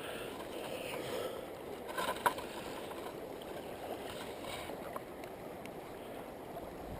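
Steady water noise with a faint knock about two seconds in.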